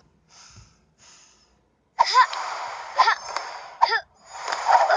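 Loud, breathy vocal bursts like sneezes, four in a row starting about two seconds in, some with a short squeaky pitch, the last one longer, after a couple of seconds of faint breathy puffs.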